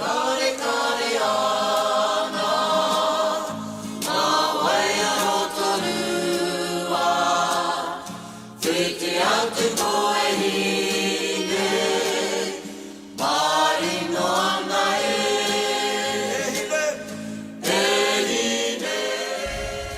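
Background music with choral singing, in sustained phrases a few seconds long.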